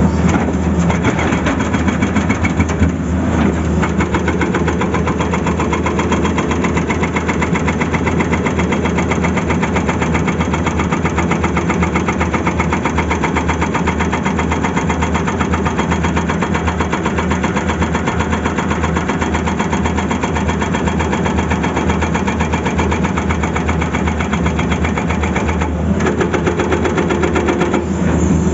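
Tata Hitachi excavator's engine running steadily under a dense, even rhythm of rapid knocks, which drop out briefly twice.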